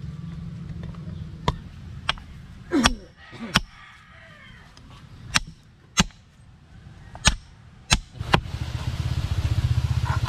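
A large machete-like knife chopping through a fish on a wooden cutting board: about nine sharp chops at uneven intervals. A low rumble runs underneath and grows louder near the end.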